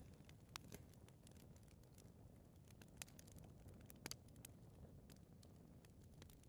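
Fireplace fire crackling faintly: scattered soft pops and ticks, a close pair about four seconds in, over a low steady rumble of the flames.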